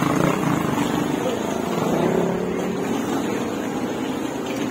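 A motor vehicle engine running steadily, its pitch wavering a little, with low voices under it.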